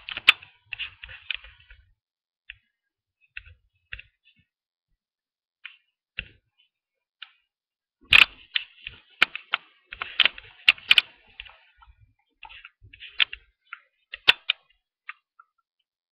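Typing on a laptop keyboard: irregular runs of quick key clicks with pauses between, the busiest runs about eight to eleven seconds in and again around thirteen to fourteen seconds.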